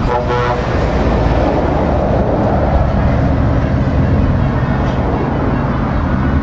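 Heavy diesel lorry engines running in slow-moving traffic, a steady low rumble close by. A short horn blast sounds right at the start.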